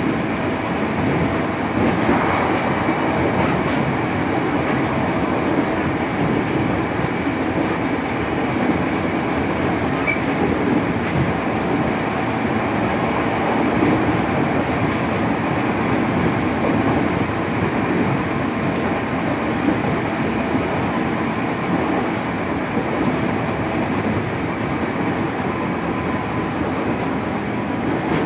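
Running noise inside a 205 series electric multiple unit motor car (MoHa 205) at speed: a steady rumble of wheels on rail and the traction motors, with a faint high whine running through it.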